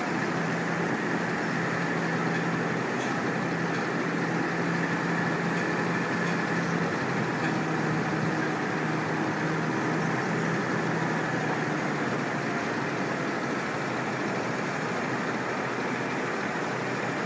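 Diesel engine of a cabover semi truck running slowly at low revs while it backs a trailer in a straight line, heard as a steady low hum over steady outdoor noise; the hum drops away about three-quarters of the way through.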